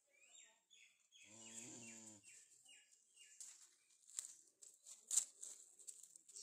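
A small bird chirping repeatedly in short falling notes, several a second, with a brief low call about a second and a half in. From about three and a half seconds, irregular sniffs and clicks right at the microphone as a newborn calf noses at it, the sharpest about five seconds in.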